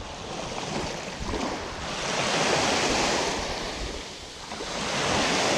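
Small waves breaking and washing up the beach, swelling twice, about three seconds apart.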